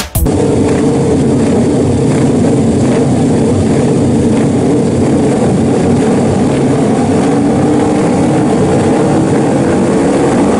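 Racing motorcycles' twin-cylinder engines running together at high revs, the riders holding them on the throttle while waiting on the start line for the race to start. The sound is loud and steady, with a few engines revving higher in the later seconds.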